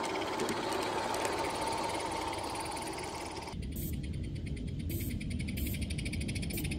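Live-steam garden-railway train, a butane-fired Forney locomotive and its freight cars, running on the track with a fast, even chuffing and clicking and some steam hiss. About halfway through, the sound changes abruptly to a quieter, more distant version over a low rumble.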